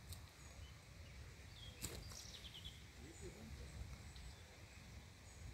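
Faint outdoor ambience: a low, uneven rumble throughout, a single sharp click about two seconds in, and a brief run of faint high chirps right after it.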